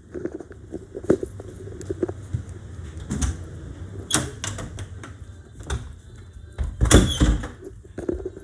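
Irregular knocks, clicks and rubbing handling noises, with a louder cluster of knocks about seven seconds in.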